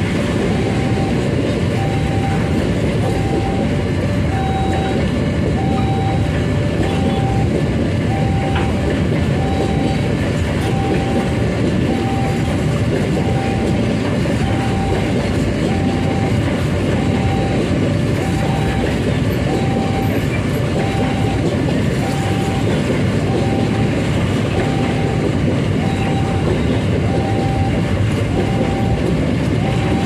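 Empty flat freight wagons rolling past on the rails with a steady clatter of wheels over the track. Over it, a short tone repeats about every two seconds, in the pattern of a level-crossing warning alarm.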